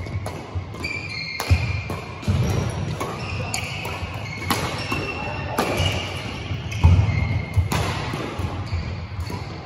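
Badminton rally: racket strings hitting the shuttlecock about once a second, with short high squeaks from court shoes on the sports-hall floor, echoing in the large hall.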